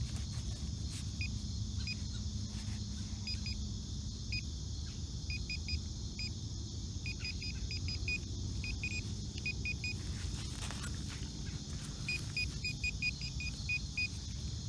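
Metal detector giving short, high-pitched beeps, singly and in quick irregular runs, as it sounds off on a buried coin target, over a low steady rumble.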